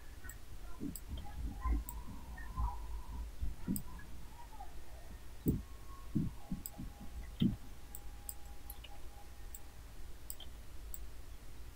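Computer mouse clicks and keyboard key presses, irregular and scattered, over a low steady hum.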